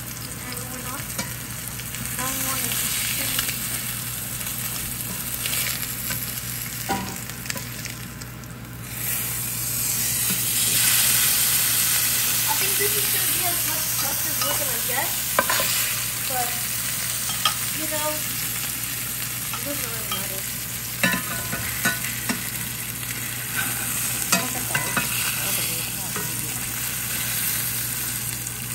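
Swordfish steak frying in hot oil in a cast-iron skillet: a steady sizzling hiss with scattered pops of spitting oil. It dips briefly about eight seconds in, then sizzles louder.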